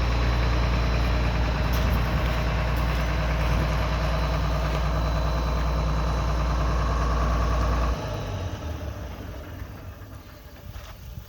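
John Deere 690B excavator's diesel engine idling steadily, then shut off about eight seconds in, the sound dying away.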